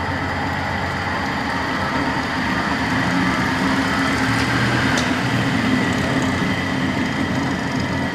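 Hardinge DV-59 second-operation lathe's spindle running steadily in high range, a continuous hum with a high whine, and a faint tick about five seconds in.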